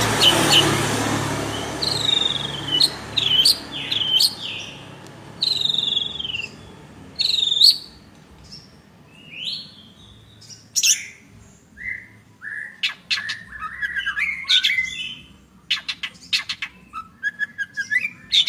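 Long-tailed shrike (cendet) singing a varied song of separate short, sharp phrases, many of them quick falling whistles, turning near the end into a run of fast clicking notes.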